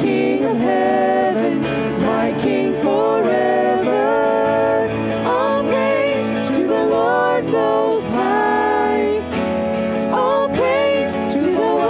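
Live church worship band: a man and a woman singing a praise chorus together over keyboard and electric guitar.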